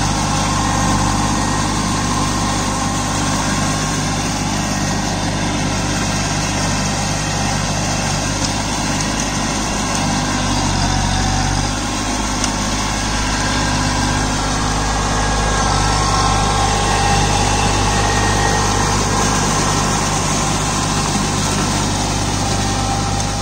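Kubota Neostar B2441 mini tractor's three-cylinder diesel engine running steadily under load, driving a PTO rotary tiller through flooded paddy mud on cage wheels.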